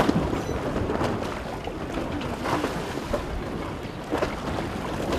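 Wind buffeting the microphone and water rushing along the hull of a sailing yacht under way, with a few faint knocks.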